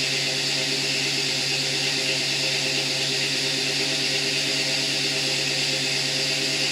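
A 1969 Ford Bronco's fuel-injected engine idling steadily at about 1,050 rpm, a low even hum with a steady whirring hiss over it.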